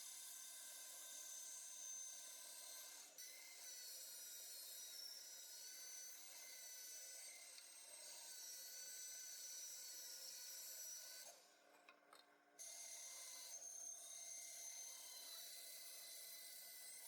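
Faint scraping of a hand tool working wood, steady and continuous, breaking off for about a second two-thirds of the way through.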